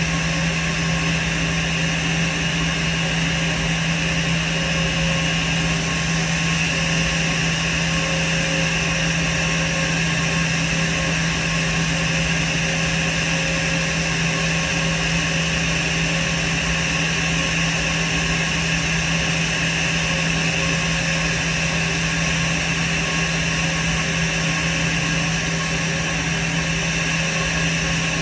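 Airbus A320 turbofan engines idling at the gate: a steady whine over a constant rush of noise. They are kept running because the APU is inoperable and the aircraft has no other electrical power until ground power is connected.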